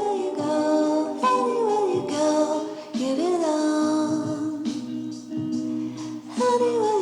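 Background music: a light song with a singing voice carrying a gliding melody over steady accompaniment.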